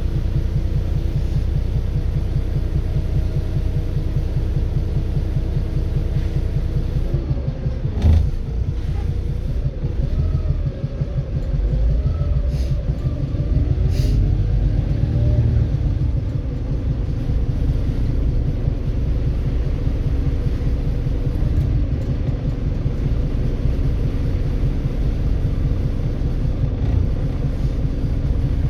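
Volvo B7RLE bus's six-cylinder diesel engine running with a knock: a steady low rumble with a fast, even pulse. There is a sharp thud about eight seconds in, and the engine note wavers for several seconds after it before settling again.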